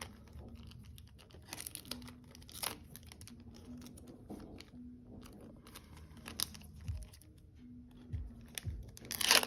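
Foil booster-pack wrapper crinkling and tearing as a trading card pack is opened and its cards handled, with a loud crinkle near the end.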